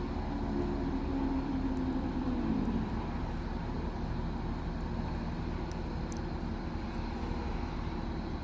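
Crane's diesel engine running under load while hoisting a heavy branch, a steady hum whose pitch eases down about two and a half seconds in.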